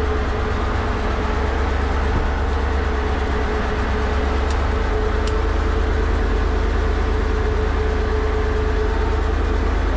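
Fishing boat's engine running steadily at constant speed: a loud low drone with a held hum above it.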